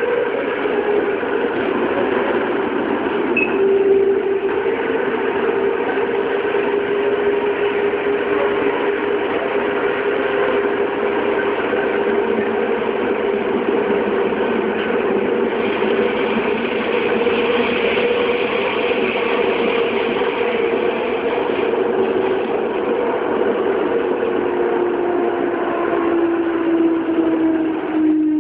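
Running sound inside a Toei 6300-series subway train with a Mitsubishi GTO-thyristor VVVF inverter: steady motor and inverter tones over the rumble of wheels on rail in a tunnel. The tones slowly fall in pitch and drop more clearly near the end as the train slows into a station.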